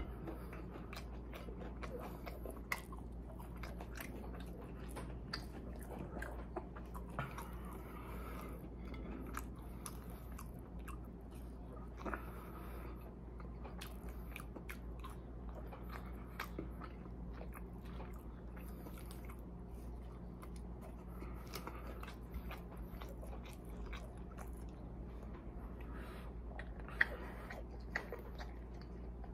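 Close-up chewing and biting of KFC fried chicken tenders and fries, with many small irregular crunches and mouth clicks. There is one sharper click near the end.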